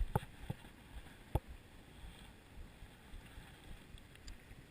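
Three sharp knocks, two close together at the start and a louder one about a second later, over a low, steady outdoor rumble.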